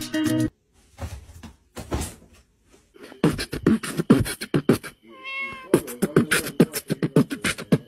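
A cat vocalising aggressively: a rapid, irregular run of spitting, clicking sounds, with a yowl about five seconds in that bends up and down.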